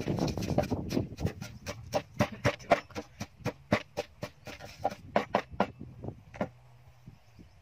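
Wooden pestle pounding dried chilies and garlic in a tall wooden mortar, dull knocks about three to four a second, stopping about six seconds in.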